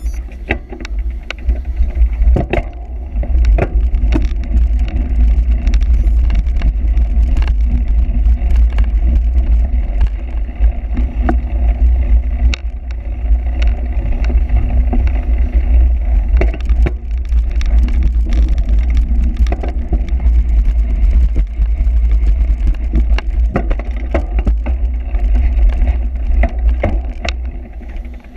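Wind buffeting the microphone of a cyclocross bike in motion, with frequent rattles and clicks from the bicycle jolting over rough ground.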